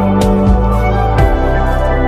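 Instrumental background music with long held notes over a deep bass line and a few soft percussive hits.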